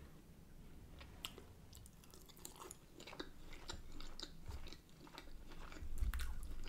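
A person chewing buttery shrimp-boil food close to the microphone: irregular wet clicks and smacks of the mouth, louder about six seconds in.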